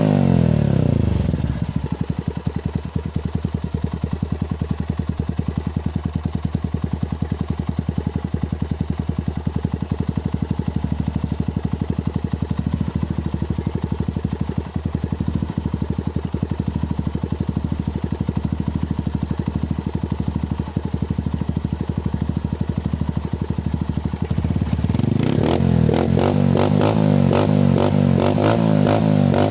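Honda TMX single-cylinder four-stroke engine running through a curved bullet-pipe muffler with the silencer insert removed (open pipe). The revs fall to a steady, rapid idle pulse about two seconds in, then rise again near the end and are held.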